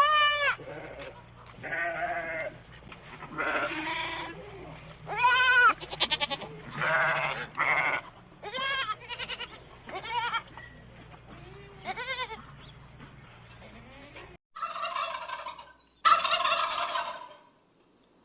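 Goat bleating repeatedly, about a dozen calls, each rising and falling in pitch. About 14 seconds in, the sound cuts to a turkey gobbling twice.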